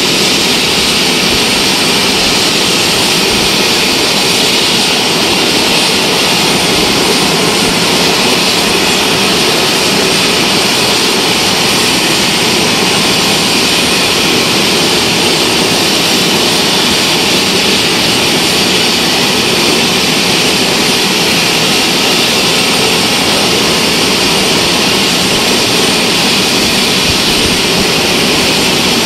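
Mi-17 military helicopter's twin turboshaft engines running on the ground with the rotors turning: a steady, loud jet-like turbine rush with a strong high hiss, unchanging throughout.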